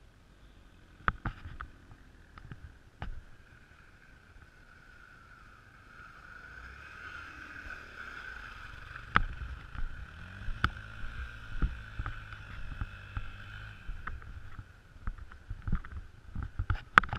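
Dirt bike engines running at low speed through mud, with a steady higher hum over a low engine note that swells in the middle, and scattered sharp knocks and splashes from the wheels and bike.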